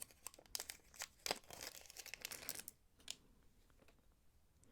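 Small plastic bead packet crinkling and rustling as it is handled, a quick run of faint crackles for about three seconds, then a single click.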